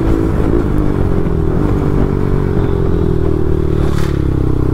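Bajaj Pulsar NS200 single-cylinder engine running loud through an Akrapovic exhaust with the dB killer removed. Its pitch sags slowly and picks up again near the end.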